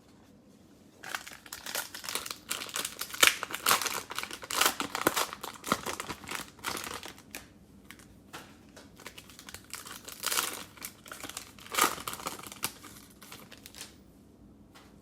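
Plastic wrapper of a cello pack of basketball trading cards being torn open and crinkled in the hands. The crackling comes in two busy spells with a lull between them.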